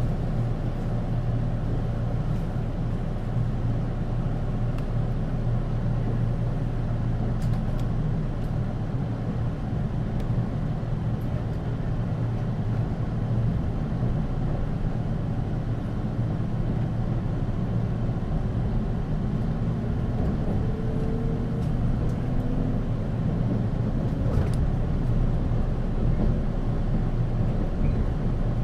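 Cabin sound inside the motor car of a 485 series electric train: a steady low hum from the running gear and traction equipment. About twenty seconds in, faint motor tones rise in pitch, and the sound grows slightly louder toward the end.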